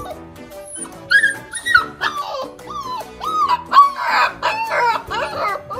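Husky puppy howling, a string of short wavering yowls that rise and fall in pitch, starting about a second in, over background music.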